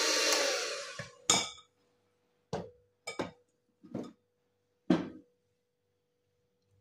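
Electric hand mixer running, then winding down about a second in. After it come about six sharp clinks and knocks, the metal beaters against a glass mixing bowl, the loudest about a second in and near five seconds.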